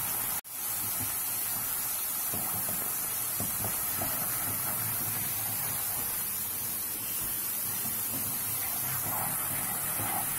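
Squid rings and chopped vegetables sizzling in a hot oiled wok as they are stir-fried with a wooden spatula: a steady hiss with a few faint scrapes.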